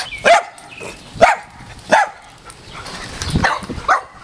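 Dog barking in short, sharp barks, about five of them, roughly a second apart.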